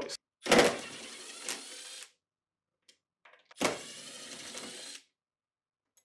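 Cordless power driver with a 3/8-inch socket spinning out the two bolts of a refrigerator door hinge. It runs twice, for about a second and a half each time with a pause between, and each run is loud at first, then steady.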